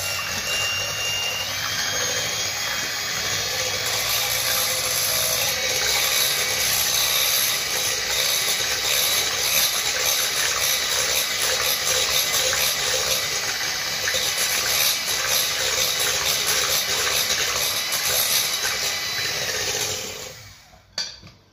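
Electric hand mixer running steadily, its beaters whisking egg-and-sugar cake batter in a glass bowl; the motor is switched off near the end.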